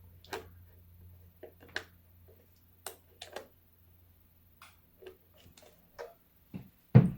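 Irregular small clicks and taps of a hex driver and screws against the plastic case of a radio-controller being taken apart, with one louder knock near the end. A steady low hum sits underneath.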